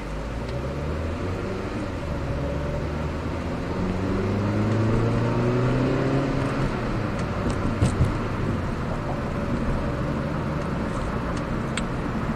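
Car engine heard from inside the cabin while driving: the engine note rises in pitch as the car accelerates for a few seconds, then settles into a steady hum with road noise.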